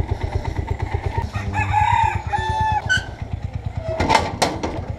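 Motorcycle engine idling with a steady low pulse, while a rooster crows once a little after a second in. Near the end come two sharp clanks from a metal gate being pulled shut.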